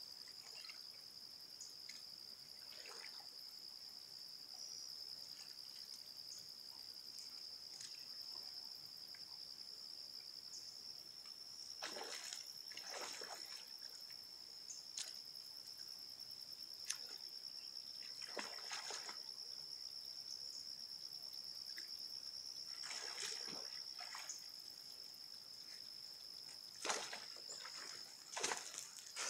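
Water splashing and dripping in short bouts as a cast net is worked and hauled in by hand in shallow lake water, with a steady high-pitched drone throughout.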